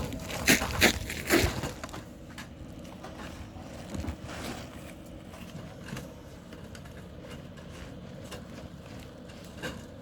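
Sheet-metal drip edge being handled and fitted along a roof's gable edge: three sharp metal clacks in the first second and a half, then quieter scraping and crinkling with an occasional click.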